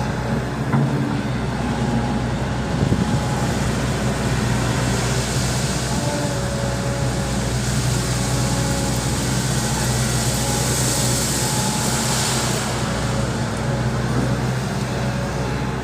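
Volvo EC200D excavator's diesel engine running steadily under work, with a couple of knocks in the first few seconds and a higher hiss swelling through the middle.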